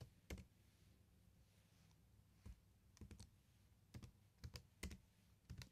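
Faint, scattered keystrokes on a computer keyboard: about ten separate clicks, singly and in small clusters, with pauses between them.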